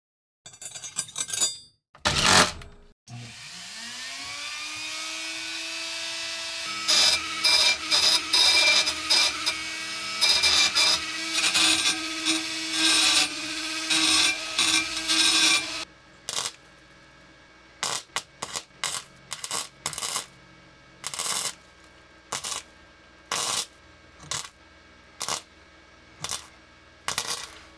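Handheld rotary tool fitted with a carbide burr spinning up with a rising whine, then grinding down steel weld beads in loud rasping passes. After that it keeps running more quietly, with a run of short sharp bursts as it touches the metal briefly.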